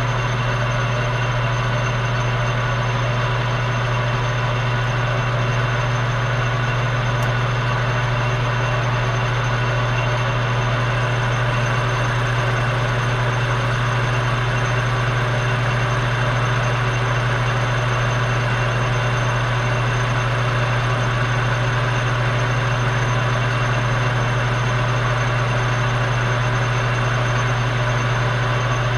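Metal lathe running steadily with a strong low hum from its motor and drive, taking a light turning cut on a small steel pin.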